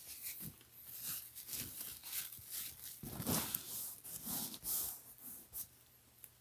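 Paper towel rubbing and rustling across a leather surface in a series of scratchy swipes, loudest in the middle and stopping shortly before the end.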